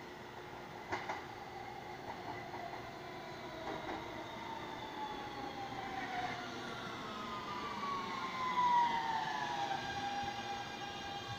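A New York City subway train, R160-type cars, slowing as it pulls into the station. Its electric traction motors give a falling, multi-toned whine that levels off near the end, over the rumble of steel wheels on the rails. A couple of sharp clicks come about a second in, and the train is loudest around nine seconds in as it draws alongside.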